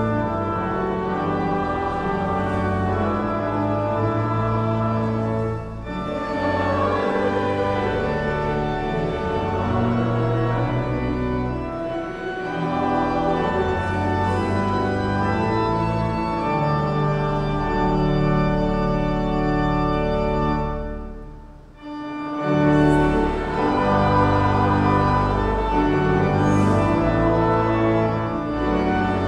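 Woolsey Hall's Newberry Memorial pipe organ playing sustained, full chords. The music fades briefly about three-quarters of the way through, then comes back louder.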